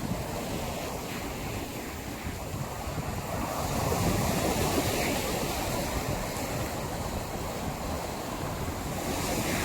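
Sea surf: waves breaking and washing up a beach, a steady rushing that swells a little about four seconds in.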